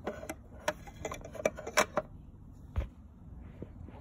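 Hard plastic toy furniture clicking and clattering against a plastic Peppa Pig playhouse: a quick run of sharp clicks in the first two seconds, then one duller thump a little before three seconds.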